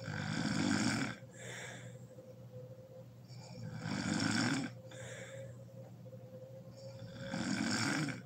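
A sleeping woman snoring loudly: three heavy snores about three and a half seconds apart, each followed by a shorter, softer breath.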